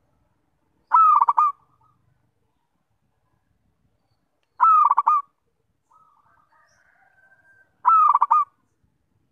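Zebra dove (perkutut) cooing: three loud stuttering coos a few seconds apart, each a quick run of rapid notes lasting about half a second.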